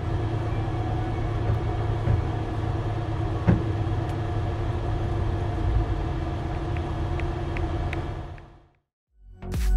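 Steady low rumble and hum of a Nightjet sleeper train running, heard from inside the cabin, with a single click about three and a half seconds in and a few faint ticks later. The sound fades out near the end.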